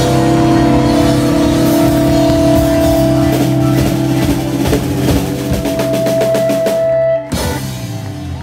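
Live rock and roll band ending a song: electric guitars hold one loud chord over a fast drum roll with cymbal crashes. It all cuts off suddenly about seven seconds in on a final hit that rings out.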